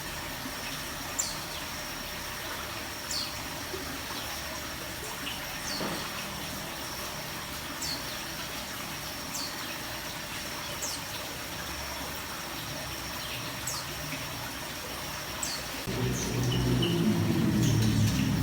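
Small cage birds chirping, short falling chirps every second or two over a steady high-pitched whine. Near the end a louder low rumble comes in for about two seconds.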